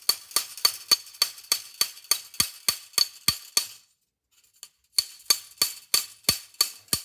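Ratchet-like metallic clicking, about three even clicks a second, each with a short ringing tone, in two runs broken by a pause of about a second.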